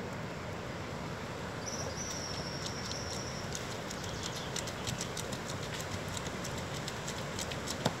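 Andean batán grinding stone: the heavy rounded upper stone is rocked back and forth on the flat stone slab, a steady, rough stone-on-stone grinding. A thin, high, steady whistle sounds from about two to three and a half seconds in.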